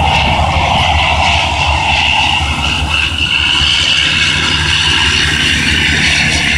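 Engines of a Canadair amphibious water-bombing aircraft running steadily, with a low hum and a higher whine.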